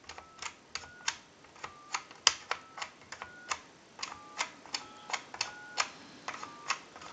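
Touch-tone keypad of a Mickey Mouse telephone being dialled key by key. Each press gives a sharp click and a short two-note dialling beep, about one or two presses a second.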